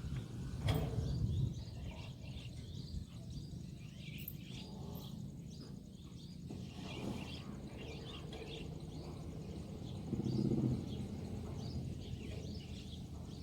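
Wind rumbling on the microphone, with many short bird chirps scattered throughout and a single sharp click about a second in.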